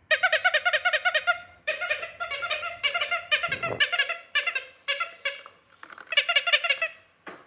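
Rapid squeaky chirping, about eight chirps a second, in several bursts of one to one and a half seconds, the bursts getting shorter after the middle.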